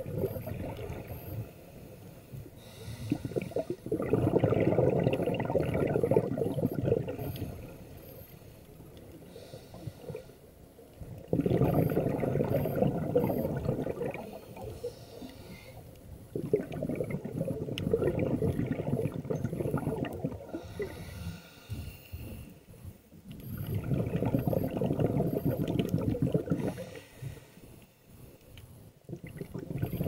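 Scuba diver breathing through a regulator underwater: four long bursts of exhaled bubbles, each a few seconds long and about six seconds apart, with quieter stretches between breaths.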